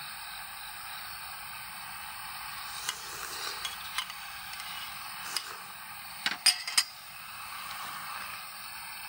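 Food sizzling on a camp stove or grill, a steady hiss, with scattered metal clinks and taps of cookware and utensils; the loudest is a quick run of clicks about six and a half seconds in.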